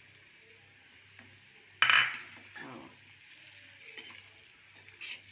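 Ground herbs going into a pot of hot melted fat: a sudden loud burst about two seconds in, then a light frying sizzle that builds as the mixture is stirred.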